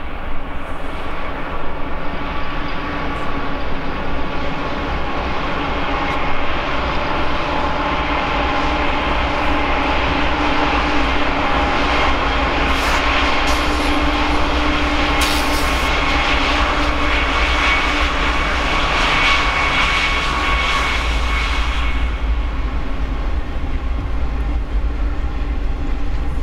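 BNSF diesel freight locomotives passing close on a downgrade, their engines running with a steady whine that is loudest as they go by mid-way. After about 22 seconds the locomotive whine falls away, leaving the deep rumble of the train rolling past.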